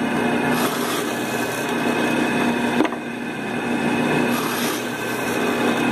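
Bench drill press motor running steadily while its bit bores through a hand-held turned wooden dove-call body, drilling the top hole through to meet the lower bore. The cutting noise swells twice as the bit bites into the wood.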